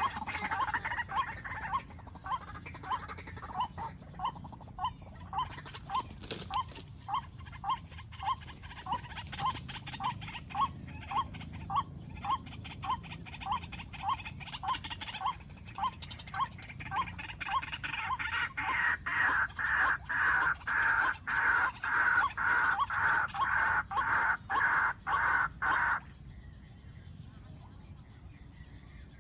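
White-breasted waterhen calling: a long series of short, evenly repeated notes, about one and a half a second, growing louder and fuller for the last several seconds before stopping suddenly near the end.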